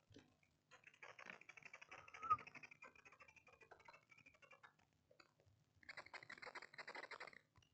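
Faint, rapid crackling and scratching from hand work on a small circuit board, in two bursts, with one sharper click a little over two seconds in.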